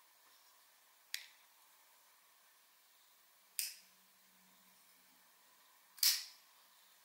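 Folding knife action: three sharp metallic clicks about two and a half seconds apart as blades snap shut and flip open, the last and loudest as a blade flips open and locks.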